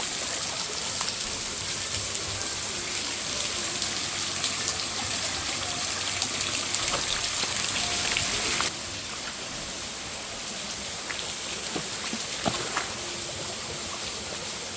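Water of a mountain stream running steadily, a continuous rushing hiss with a few faint splashes; the level drops suddenly about two-thirds of the way through.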